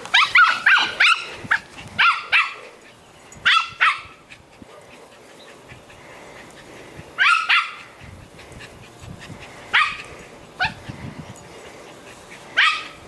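Small poodle yapping in play as it chases a swinging tetherball: short, high-pitched barks, a quick string of them at the start, then pairs and single yaps every few seconds.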